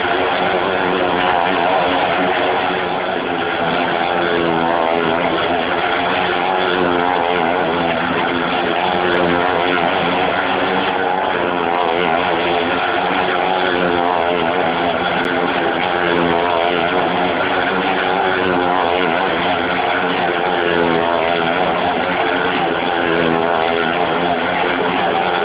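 Motorcycle engine running hard and continuously as the bike circles the vertical wooden wall of a well-of-death pit, its pitch swelling and dipping over and over.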